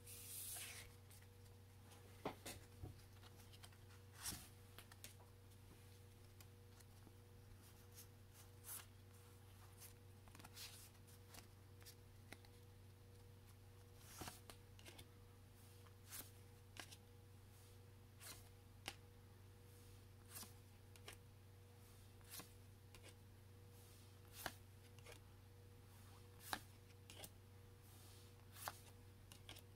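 Faint handling of Pokémon trading cards: a short, soft card slide or tap about every two seconds, as cards are moved one at a time, over a steady low electrical hum.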